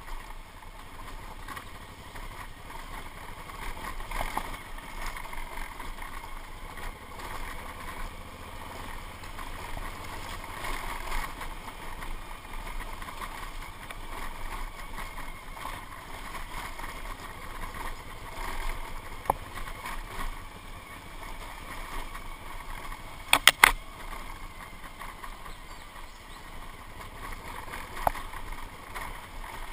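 Motorcycle riding a rough dirt track: the engine runs steadily under wind and tyre noise, with scattered sharp knocks from the bumps. A quick run of three or four loud knocks comes about two-thirds of the way through.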